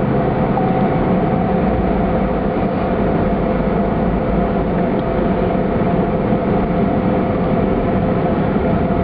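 Steady road noise from a moving vehicle, heard from inside: tyre and engine rumble with a faint steady tone running through it.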